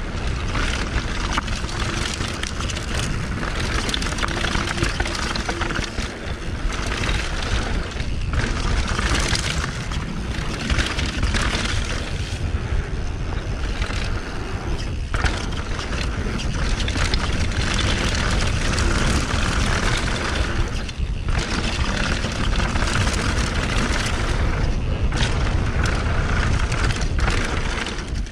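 Mountain bike descending a dry dirt trail at speed: tyres rumbling and the bike rattling, with wind buffeting the camera's microphone. A few brief lulls where the noise drops for a moment.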